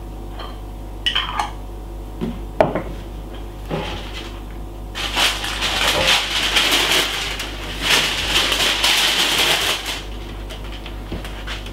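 Kitchen utensils and jars handled off camera: a few sharp clicks and knocks, then about five seconds of dense clattering and scraping.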